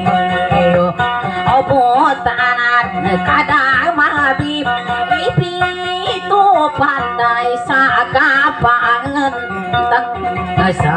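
Woman singing dayunday, the Maranao sung verse form, into a microphone over her own strummed acoustic guitar; the vocal line is ornamented, its pitch wavering and sliding over a steady guitar accompaniment.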